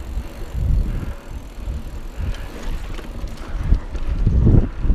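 A mountain bike being ridden, with wind rumbling unevenly on the microphone.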